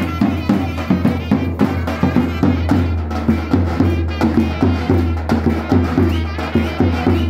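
Live davul and zurna playing a Kırıkkale halay dance tune: a reedy, wavering double-reed melody over a steady beat of bass-drum strokes, several a second.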